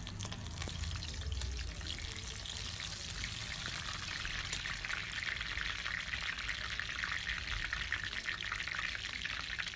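Bay leaves sizzling in hot mustard oil in a kadhai: a steady crackle of many tiny pops.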